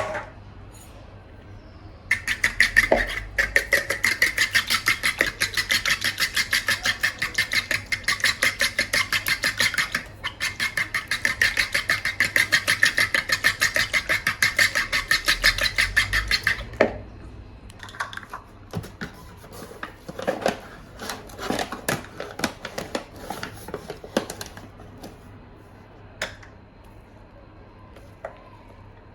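A kitchen utensil striking rapidly and evenly, many strokes a second, for about fourteen seconds with a brief break near the middle, then scattered clicks and knocks.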